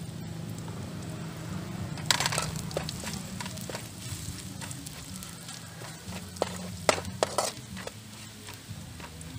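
Chopped garlic and palm sugar frying in oil in a steel wok, a faint sizzle, with a metal spatula scraping and clinking against the wok: a sharp scrape about two seconds in and a few clinks around seven seconds. A steady low hum runs underneath.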